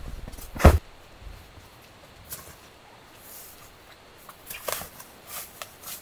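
A GOTO double self-inflating camping mat being rolled and handled on a tent floor. There is a heavy thump under a second in as it is pressed down, then quieter fabric rustling and a few light knocks near the end.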